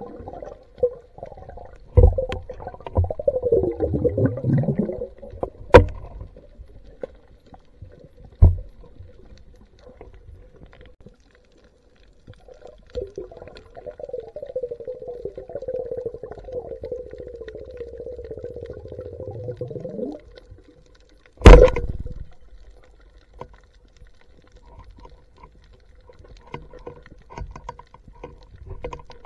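Underwater sound through a camera housing: a whining tone that slides down in pitch, then a longer steadier whine that drops away near the end, with several sharp knocks in between, the loudest about two-thirds of the way in.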